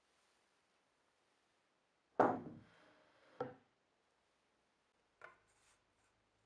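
Two sharp wooden knocks about a second apart, the first the loudest, then a fainter knock near the end: wooden workpieces knocked or set down on a workbench.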